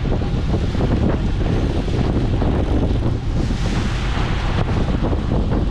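Wind buffeting the camera microphone over the rushing wash of a boat's churning wake, a steady, dense rumble.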